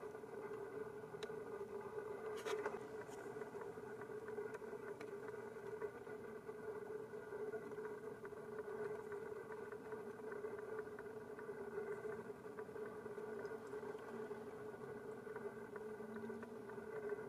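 Faint, steady mechanical hum with a few faint clicks about two and a half seconds in.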